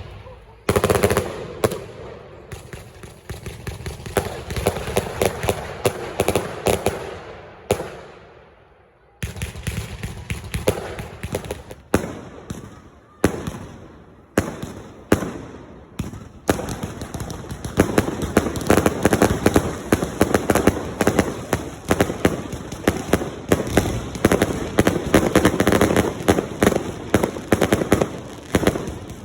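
Fireworks going off in a string of sharp bangs and crackles. They die away briefly about eight seconds in, then start again and build into a dense, rapid barrage of cracks in the second half, like a cake or barrage firing off many shots in quick succession.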